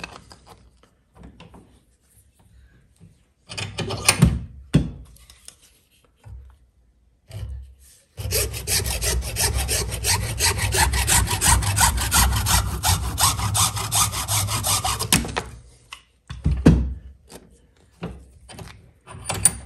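Hacksaw cutting through a solid 3D-printed plastic bracket clamped in a bench vise, fast, even back-and-forth strokes for about seven seconds, starting about eight seconds in. A few knocks and clicks come before and after the sawing.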